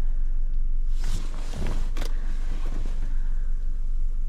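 Vehicle engine idling with a steady low rumble, with a few brief handling noises about one and two seconds in.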